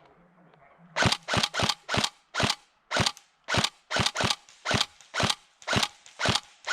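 Airsoft gun firing single shots in quick succession: about a dozen sharp clacks, roughly two a second, starting about a second in.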